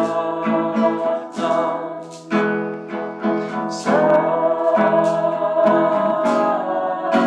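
Music: acoustic guitar strummed in a steady rhythm under a sung melody.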